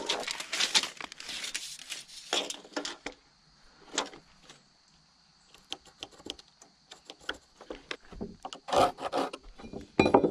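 A tape measure and carpenter's pencil worked over a rough-sawn board: the tape blade rubbing and scraping across the wood, then scattered pencil scratches and light taps, with a few louder scraping strokes near the end as a line is marked against a metal speed square.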